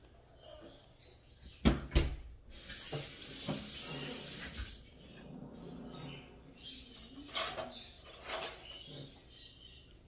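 Hand-feeding a parrot chick with a syringe: two sharp knocks about two seconds in, then a hiss lasting about two seconds, followed by softer scattered clicks and rustles.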